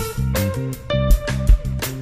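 Instrumental jazz-rock music: electric guitar playing over bass guitar and a drum kit, with drum hits about every half second.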